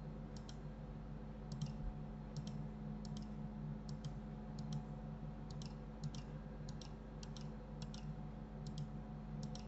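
Computer mouse button clicks, about a dozen of them at irregular intervals. Most come as quick double ticks of press and release, heard over a faint steady low electrical hum.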